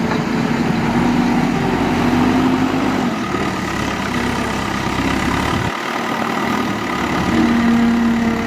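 Diesel engine of a JCB 3DX backhoe loader running steadily, its pitch shifting slightly as it works.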